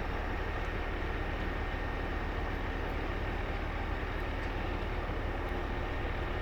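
Boat engine running steadily: a low, even rumble with a faint steady whine above it.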